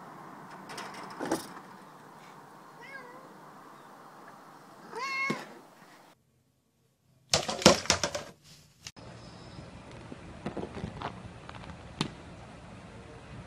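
Domestic cat meowing: a faint call about three seconds in and a louder, bending meow about five seconds in. After a brief silence, a burst of loud sharp knocks and clatter.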